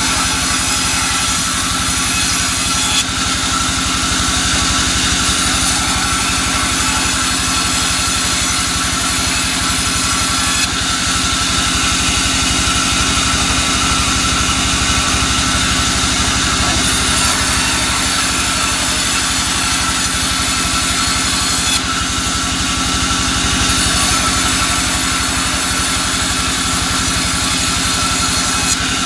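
Sawmill bandsaw running and cutting soft albasia (sengon) timber: a loud, steady machine drone with a high whine over it, while the hiss of the blade in the wood rises and falls a few times.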